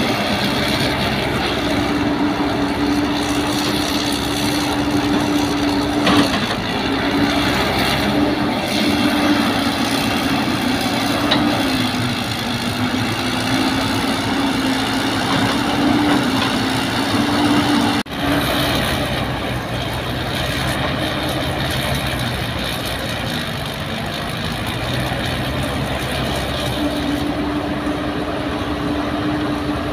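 Caterpillar excavator's diesel engine running steadily while it digs and loads, its pitch sagging and recovering as the hydraulics take load. There is an occasional knock, and a brief break about two-thirds of the way through.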